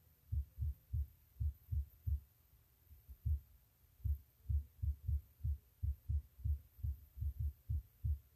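A series of about twenty short, dull, low thumps, irregularly spaced at roughly two to three a second.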